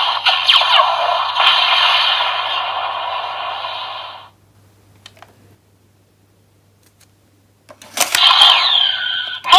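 DX Valvarusher transformation toy playing its electronic sound effect through its built-in speaker; the sound cuts off about four seconds in. After a few seconds of quiet with small plastic clicks, a trading card is slid into the slot with a click, and the toy starts a loud new electronic sound with sliding tones near the end.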